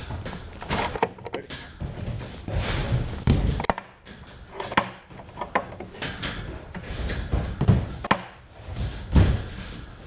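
Irregular knocks, thumps and bumps close to the microphone, made as the bobsled that the camera is mounted on is handled and people move around it on the metal grating.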